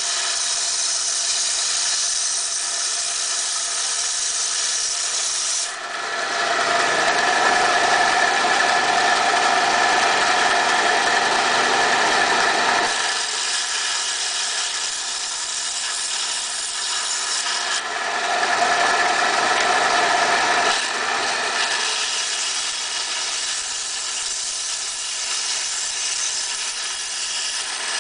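Inland DFS-100 ReefKeeper coral frag band saw running with a steady whine as its blade cuts through coral rock. It gets louder for a stretch starting about six seconds in and again briefly about eighteen seconds in, as the blade bites into the rock.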